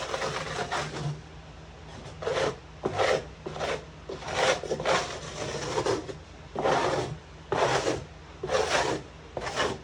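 Scraping strokes across wood, about a dozen rough rasping passes at an uneven pace: excess Loctite Power Grab construction adhesive being scraped up off the shower base.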